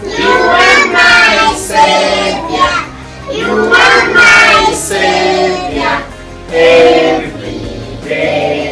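A class of young schoolchildren singing together in sung phrases with short breaks between them.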